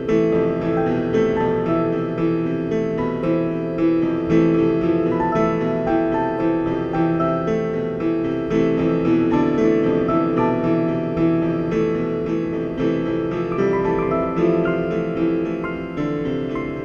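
Background piano music: a continuous stream of struck notes that each fade away.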